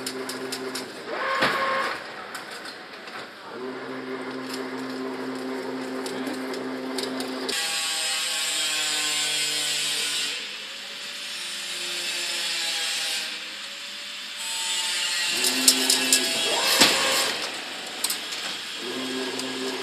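A fully automatic double-wire chain link fence machine running, with a steady motor hum under mechanical clicking and clatter. There are sharp knocks about a second and a half in and again near the end. For several seconds in the middle the hum gives way to a hissing whir.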